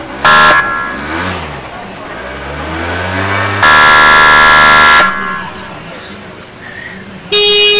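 Police patrol car's horn sounded three times: a short toot, a long blast of about a second and a half, then another blast near the end.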